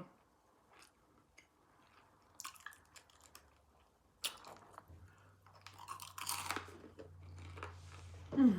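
Close-up eating sounds: chewing and wet lip smacking with a few crunchy bites, in scattered bursts. A steady low hum comes in about halfway, and a short low falling vocal sound near the end is the loudest moment.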